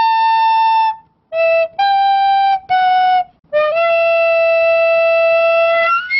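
Intro music: a solo melody of a few held notes with short breaks between them, the last note held for about two seconds and bending upward at its end.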